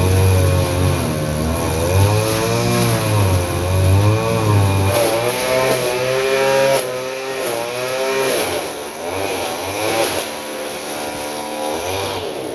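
Small two-stroke engine of a brush cutter (string trimmer), revved up and down over and over as it cuts grass, its pitch rising and falling about once a second. A lower, steadier engine drone runs under it for the first five seconds or so.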